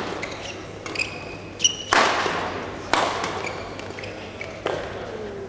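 Badminton rackets striking a shuttlecock in a fast doubles rally: four sharp hits spaced about a second apart, each echoing in a large hall, with short high squeaks of shoes on the court floor between them.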